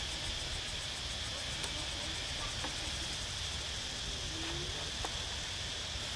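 Steady high-pitched drone of insects, crickets or cicadas, over a low rumble, with a few faint short chirps.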